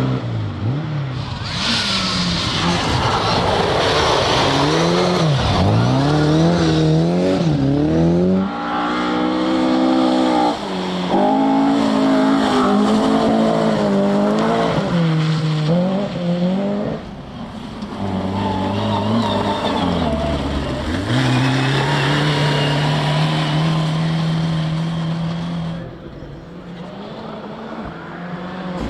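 Rally car engine revving hard at close range through a stage, its pitch climbing and falling repeatedly as the driver lifts off and changes gear. There are sharp drops in revs where it slows for corners, then it holds a long steady high note before it falls away near the end.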